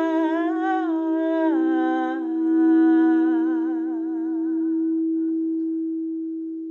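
A voice humming a slow melody over the steady ring of a singing bowl. The hummed note steps down twice, then is held with a wavering vibrato and fades out, leaving the bowl's tone sounding alone.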